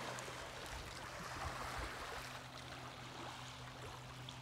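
Small waves lapping on a pebbly lakeshore: a soft, steady wash of water, with a faint low hum underneath.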